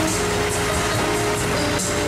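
Electronic keyboard playing a melody of held notes over a light, repeating percussion beat, with no singing yet.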